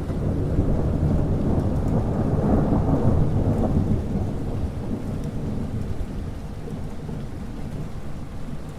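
Thunderstorm: a long low roll of thunder that swells and rumbles for a few seconds, then eases off over steady rain.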